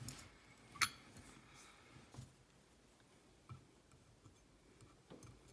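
Small handling noises around a brass lock-parts tray: one sharp metallic clink with a brief ring about a second in, then a few faint light ticks and taps.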